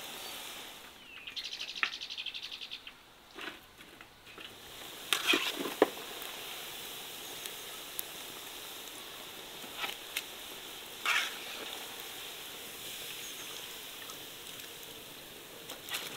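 Hot oil sizzling steadily in a cast-iron pot as stuffed bulgur köfte deep-fry. Sharp metal clanks from a lid and a skimmer against the pot break in, loudest about five seconds in, with more near ten and eleven seconds.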